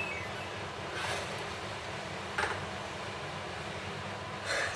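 Kitchen noise while a quesadilla finishes in the frying pan: a steady hum with three short scrapes or knocks, about a second in, midway and near the end.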